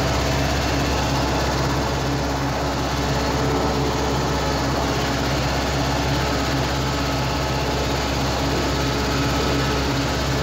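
Ursus C-360 tractor's four-cylinder diesel engine running steadily under load while pulling a four-furrow plough through the soil, heard from inside the cab.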